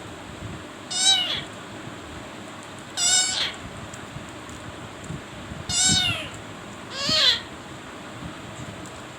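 Four short meow-like animal calls, each about half a second long and clear-toned, bending down in pitch at the end, spaced one to three seconds apart.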